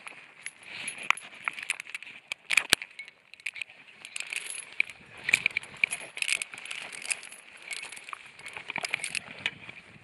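Iron chain links clinking and a carabiner knocking and sliding along the chain in many short, irregular clicks, with a fleece jacket rubbing against the microphone.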